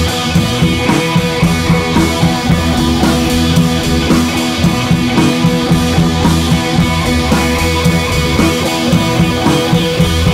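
Background music: a rock-style track with drums, guitar and a steady beat.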